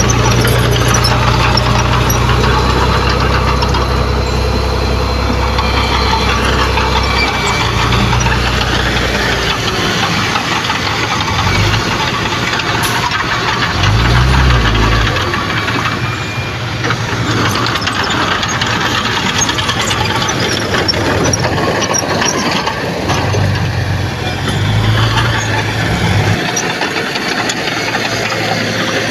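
Heavy diesel earthmoving machine working, its engine running with a steady noisy din throughout. The deep engine note is strong for the first nine seconds or so, then drops away, and comes back briefly about 14 seconds in and again from about 23 to 26 seconds.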